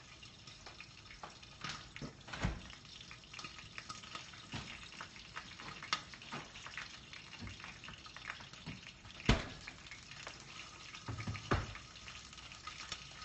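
Bacon frying in a pan, a steady sizzle full of small crackles, with a few sharper knocks about two, nine and eleven seconds in.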